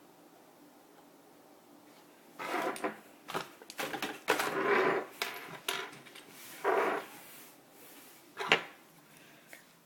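Hands handling a Beyblade spinning top and its parts: a run of short scrapes, rustles and clicks of small hard pieces, with one sharp click near the end.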